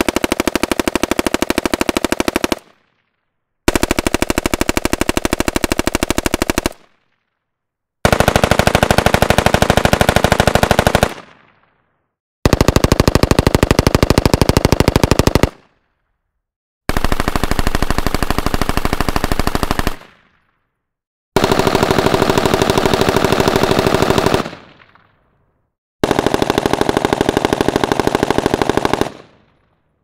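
Heckler & Koch HK53 rifle firing seven long full-auto bursts of about three seconds each, every one cut apart by dead silence. Each burst is the same gunfire as picked up by a different microphone at a different distance, and some end in a short echoing tail.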